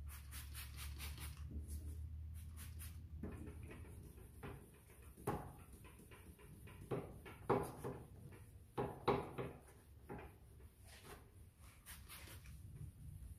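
Quick spritzes of a trigger spray bottle wetting a plastic headlight lens, then hand wet-sanding of the lens with a foam-backed sanding disc, with a few sharp knocks in between; more spritzes near the end.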